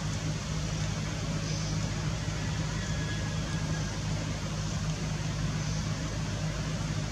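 A steady low mechanical hum under a constant hiss, unchanging throughout.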